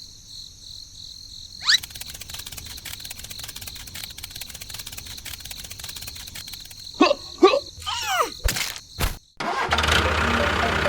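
A rapid run of clicking for several seconds, then an engine starting up and running steadily near the end. There are a few short vocal sounds just before it starts.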